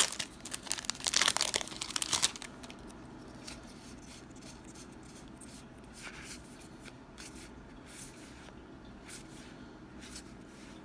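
Foil booster pack wrapper being torn open and crinkled for about two seconds, then quiet, scattered soft clicks of cards being handled.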